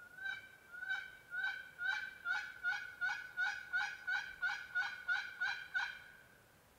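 A run of about fourteen turkey yelps from a hunter's turkey call, each note dropping in pitch, slow at first and speeding up as it goes. It is calling meant to make a gobbler answer.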